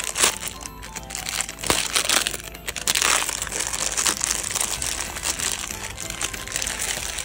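Clear plastic packaging bag crinkling and rustling as a doll is worked out of it by hand, over quiet background music.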